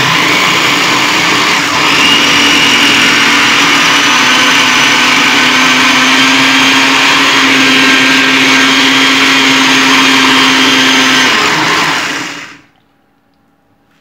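Philco blender running with a little water in the jar: a steady motor whine with the blade churning the water, which stops about twelve seconds in and quickly spins down. The blade is being driven again now that the stripped drive coupling that turns the jar has been replaced.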